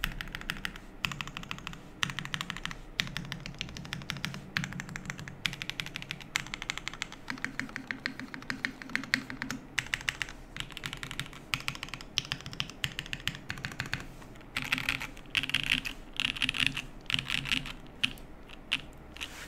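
Fast, continuous typing on a Keycult 1/65 custom mechanical keyboard with lubed and filmed Black Cherry Pie linear switches on an aluminum plate, under GMK keycaps. About three-quarters of the way through, the keystrokes come in louder, more spaced-out clusters.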